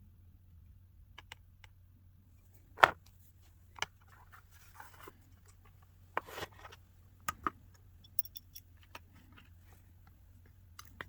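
Small hand tools and phone parts being handled on a repair bench: scattered light clicks and short scrapes, the loudest about three seconds in and again about six seconds in.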